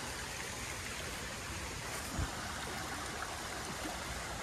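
Jungle stream water running steadily, with one brief low thump about two seconds in.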